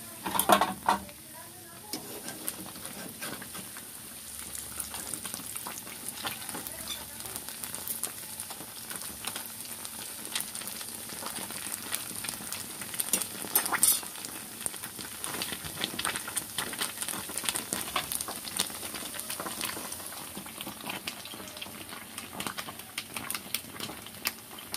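Plantain empanadas deep-frying in hot oil in a pan, a steady sizzle full of small crackling pops. There are two louder bursts, about half a second in and about halfway through.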